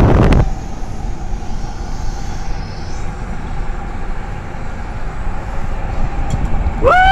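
Freight train's tank cars rolling past on the rails in a steady low rumble, with wind buffeting the microphone that cuts off about half a second in. Near the end comes a short pitched call that rises and then falls.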